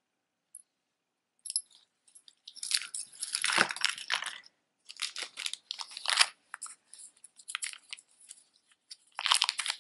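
Clear plastic bag crinkling and rustling as it is handled, in bursts, with scattered small clicks of beads between; loudest near the end.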